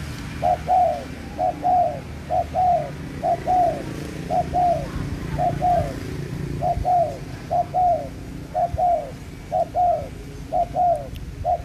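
A dove cooing: a two-note coo, each note sliding down in pitch, repeated steadily about once a second.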